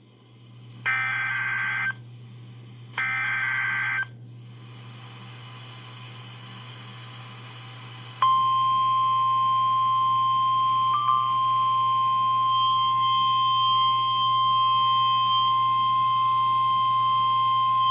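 Emergency Alert System weather-radio alert. It opens with the last two of three SAME header data bursts, each a buzzy digital squawk about a second long. After a few seconds of faint hiss comes the steady single-pitch 1050 Hz NOAA Weather Radio warning alarm tone, held for about ten seconds, which announces the tropical storm warning that follows.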